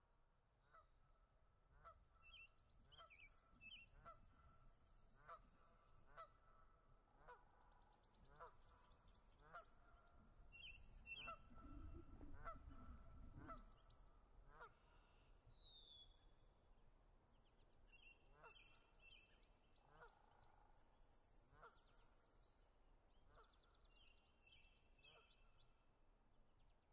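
Faint bird calls: a short honking note repeated about once a second, with small birds twittering over it. A low rumble swells for a few seconds in the middle.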